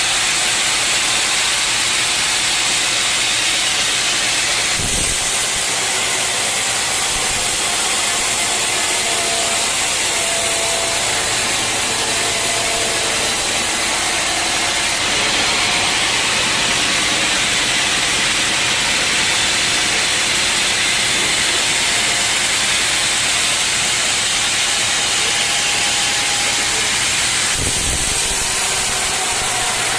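Sawmill saw cutting through an old, dense-fibred teak log: a loud, steady hissing cut with a faint whine, its tone shifting a few times.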